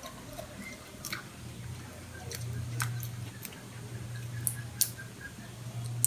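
Grilled shrimp shell being cracked and peeled by hand: scattered sharp clicks and faint crackles, about a second apart, over a steady low hum.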